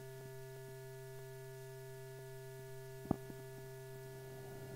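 Steady electrical hum on an old film soundtrack, a low buzz with several higher overtones, with a few faint ticks and one sharp pop about three seconds in.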